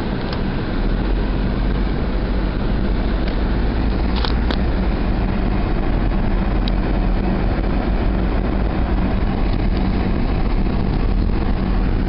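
A car driving, heard from inside the cabin: a steady low engine and road hum, with two faint clicks about four seconds in.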